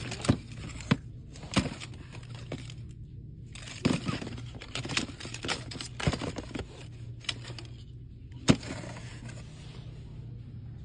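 Irregular clicks, knocks and crinkles of packaged merchandise being handled, the loudest knock about eight and a half seconds in, over a steady low hum.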